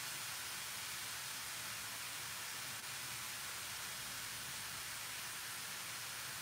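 Stir fry sizzling in hot oil in the pan: a steady, even hiss.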